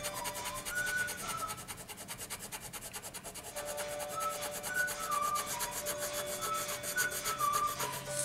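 Coloured pencil scratching on paper in rapid back-and-forth shading strokes.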